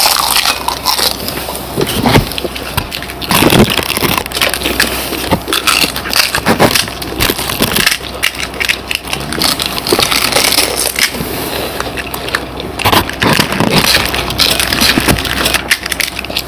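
Crisp fried fuchka (pani puri) shells cracking as they are poked open by hand and crunched while being chewed: a dense, continuous run of crackles and crunches.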